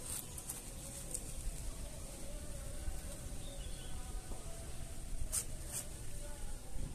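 Domestic cat snoring in its sleep: a low, fluttering rumble of breath, with two short clicks a little past five seconds in.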